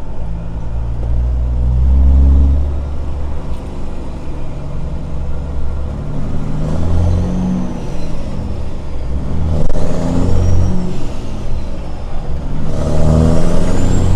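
Semi truck's diesel engine pulling away and accelerating. The revs rise and drop back several times as it works up through the gears, with the loudest pulls about two seconds in, about ten seconds in and near the end.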